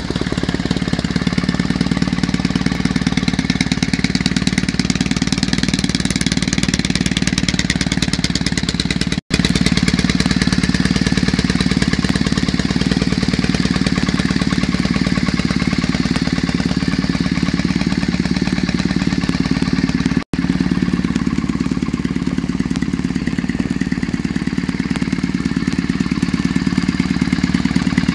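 Triumph Bonneville parallel-twin engine idling steadily through its exhaust, a low even pulsing with no revving. The sound cuts out for an instant twice.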